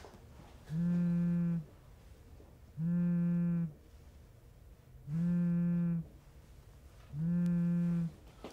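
iPhone in a rugged case vibrating on a stone-tile tabletop for an incoming call: four steady buzzes, each just under a second long, about two seconds apart.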